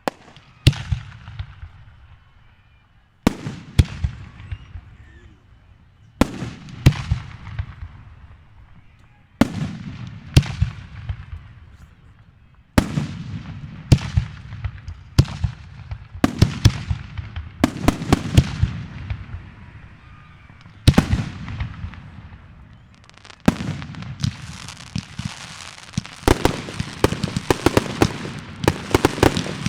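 Fireworks exploding: a series of sharp booms with trailing rumble, one every second or few seconds, some in quick pairs. Over the last quarter they become a dense run of rapid crackling bangs.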